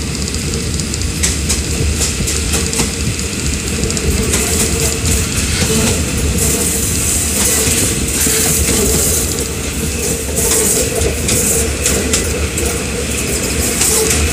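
Passenger train running along the track: a steady rumble of wheels on rails with irregular clicks and clacks over the rail joints, and a high hiss that grows stronger from about halfway on.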